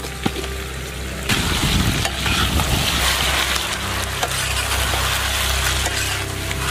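Chicken sizzling in hot oil in a large wok while a metal slotted spatula stirs it, scraping and clinking against the pan. The sizzling gets louder about a second in.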